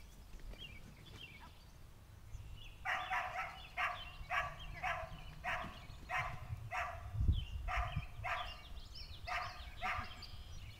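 A dog barking in a rapid string, about two to three barks a second, starting about three seconds in.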